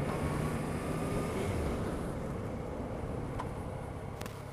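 Motorcycle engine running under wind and road noise, easing off as the bike slows, with a few sharp clicks near the end.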